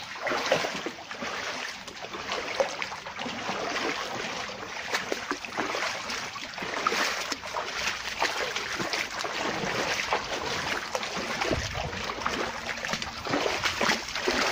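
People wading in chest waders through a shallow, flowing river: irregular splashing and sloshing of water around their legs over the steady rush of the stream.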